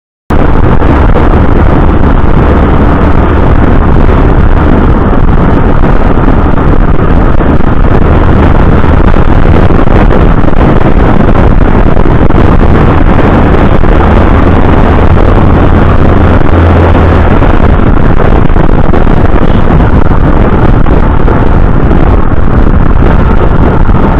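Heavy wind buffeting on a motorcycle-mounted microphone at road speed, over the motorcycle's engine and road noise. It is loud and steady, cutting in abruptly just after the start.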